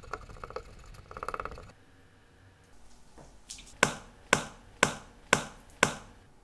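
Lids of small stainless-steel mesh watch-parts cleaning baskets pressed on one after another: five sharp metallic clicks about half a second apart. Before them, a cotton swab and pegwood scrub a small rusty movement part.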